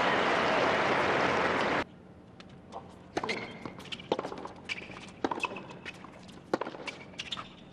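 Crowd applause that cuts off abruptly about two seconds in, followed by a tennis rally on a hard court: sharp racket strikes and ball bounces roughly once a second.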